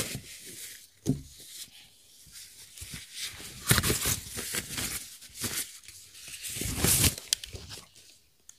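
Thin plastic bag crinkling and rustling in irregular bursts as it is pulled off a speaker and bunched up by hand.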